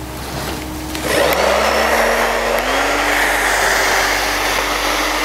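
Handheld hair dryer switched on about a second in, its motor whining up in pitch over the next two seconds and then blowing steadily.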